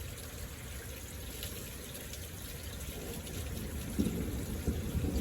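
Steady rain with water trickling and running. Near the end come a few low bumps.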